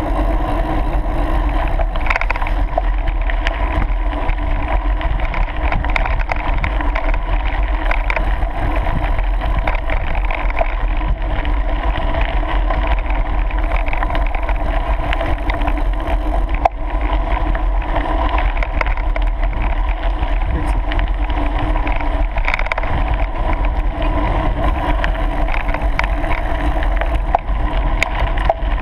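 Steady wind rumble on the microphone of a camera riding with a mountain bike, with the tyres rolling over a gravel track and scattered brief clicks and knocks from the bike.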